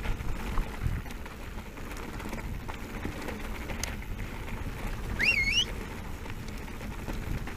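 Specialized Turbo Levo electric mountain bike rolling down a gravel track: steady tyre crunch and rattle, with wind noise on the camera microphone. A brief high, wavering chirp sounds about five seconds in.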